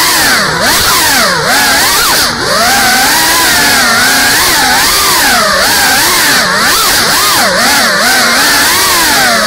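GEPRC CineLog 35 cinewhoop's brushless motors and ducted propellers whining, the pitch swooping up and down constantly with the throttle. There are brief dips as the throttle is chopped, a few times in the first few seconds.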